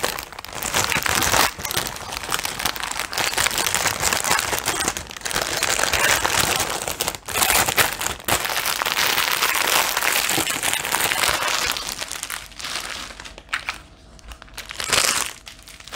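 Crinkling of a clear plastic bag packed with small plastic packets of diamond-painting drills as it is handled. The crinkling is continuous for about twelve seconds, then turns sparse, with one more short burst near the end.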